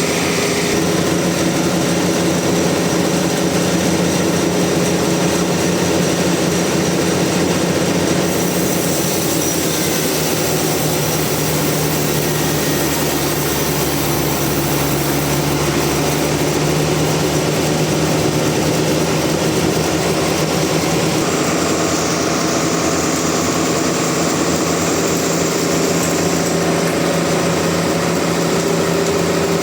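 Sawmill machinery running steadily with a continuous engine hum, its level unbroken throughout.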